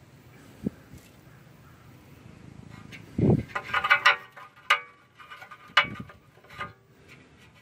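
Metal parts of a McCormick-Deering 10-inch Type D feed grinder being handled by hand: quiet at first, then a dull thump a little past three seconds, followed by several sharp metallic clanks with a brief ringing.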